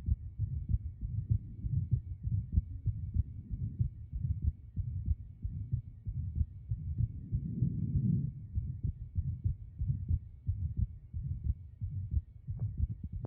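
Heart sounds of a heart with an atrial septal defect (ASD), heard through a stethoscope: low beats repeating steadily with a murmur, swelling louder for about a second a little past halfway.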